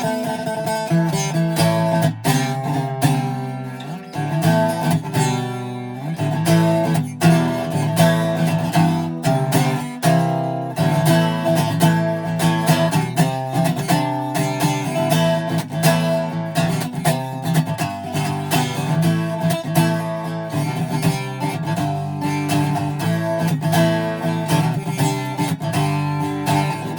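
Greco D-70 acoustic guitar being played, with chords strummed throughout.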